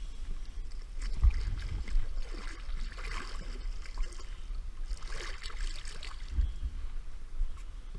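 Seawater splashing as a released smoothhound is let go beside a kayak and swims off, in two splashy bursts about three and five seconds in, over a steady low rumble.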